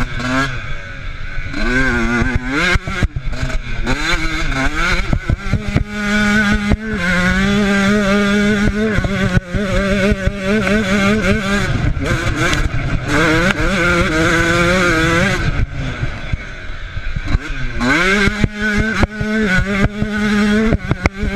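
Off-road motorcycle engine recorded on board, revving hard under acceleration: the pitch climbs again and again as the rider works through the gears and holds steady on faster stretches. Frequent sharp knocks and clatter come through as the bike goes over rough ground.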